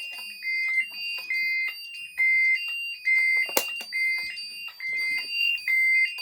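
Fire alarm panel sounder beeping in alarm mode, alternating a lower and a higher tone about once a second, the sign of a fire alarm condition on the system. Handling clicks on the equipment, one sharp click about three and a half seconds in.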